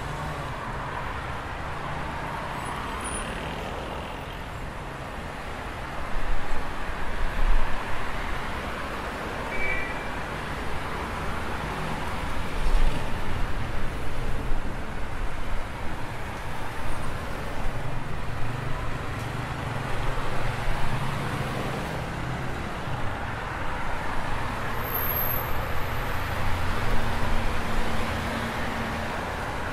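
City street traffic: a steady road-noise rumble of passing vehicles, which gets louder and more uneven about six seconds in.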